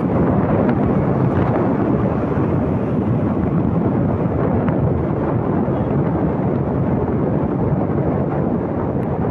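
Steady wind rush buffeting the microphone on a small motorcycle riding at speed on a highway, with road noise mixed in.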